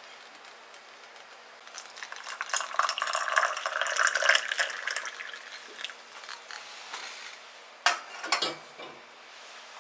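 Water poured from a kettle into a ceramic teapot through a stainless mesh infuser holding a tea bag, splashing for about four seconds from around two seconds in. Near the end comes one sharp knock and then a short clatter.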